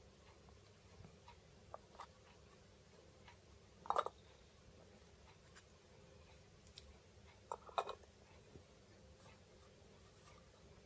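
Quiet room tone with a few faint ticks, and twice a short, light clink as a small metal tin of cat food is set down on top of another tin.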